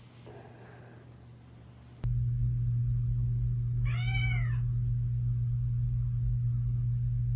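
A domestic cat meows once, a single call that rises and then falls in pitch, about four seconds in. It sits over a steady low hum that starts suddenly about two seconds in and is the loudest sound throughout.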